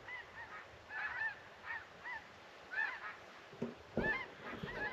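A flock of geese honking, many short calls overlapping in irregular bunches, with a few low thumps about four seconds in.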